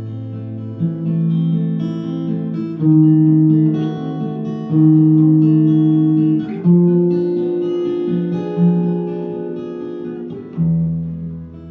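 Acoustic guitar playing a slow introduction: a chord struck about every two seconds and left ringing.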